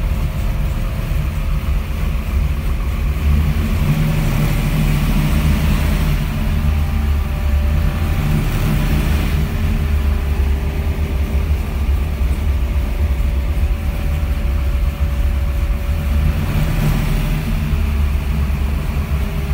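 The engine of a 1965 Dodge Coronet altered-wheelbase car, run by Holley engine management, idling steadily after a cold start, heard from inside the cabin.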